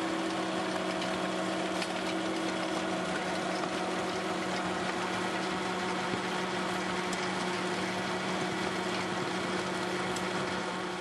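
Tractor engine and a PTO-driven Valentini FR implement running steadily, a constant machine drone with an even hum.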